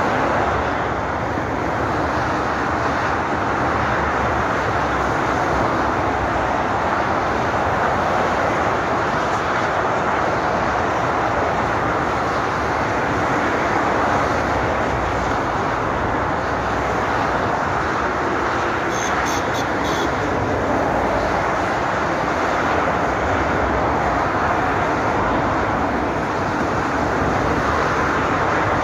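Dense motorway traffic passing at speed in both directions: a steady, unbroken rush of tyre and engine noise from many cars, vans and lorries.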